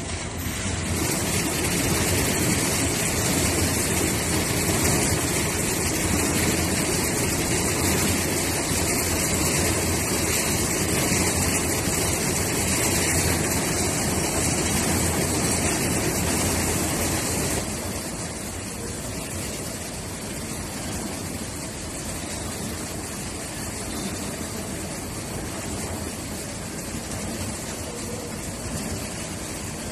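Truck engine running steadily, getting quieter about two-thirds of the way through.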